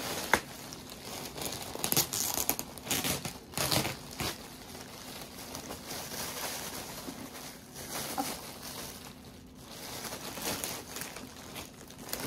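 Packaging crinkling and rustling in irregular bursts as a new backpack is handled and unwrapped by hand.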